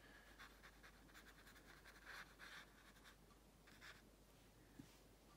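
Faint strokes of a round paintbrush on watercolour paper: a run of short, soft strokes that stop about four seconds in.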